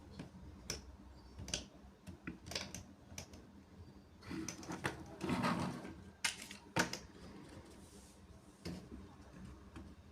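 Hard plastic toy pieces being handled: irregular sharp clicks and taps, with a longer rustle of handling about five seconds in.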